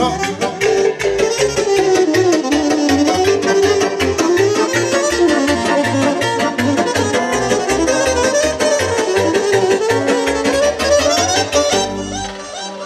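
A live band plays Roma dance music. A saxophone carries a winding melody over keyboard accompaniment and a steady bass-and-drum beat, and the music eases off near the end.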